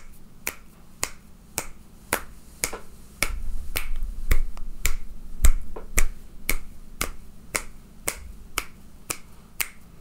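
Finger snaps from both hands, about two to three a second and varying in strength, picked up raw by a Blue Snowball Ice USB microphone with a cardioid pattern as the hands move around it to test its pickup.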